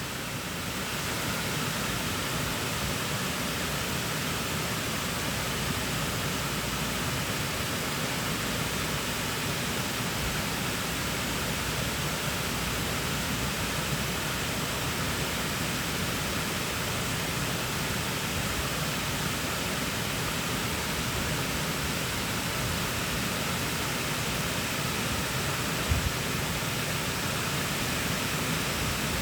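Steady, unbroken rush of running water, with one brief knock near the end.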